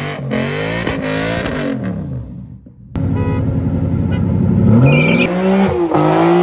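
Sports car engine revving hard during a burnout launch, its pitch climbing, dropping at a shift and climbing again, with a short tyre squeal about five seconds in. Before that, another stretch of revving fades away about two and a half seconds in.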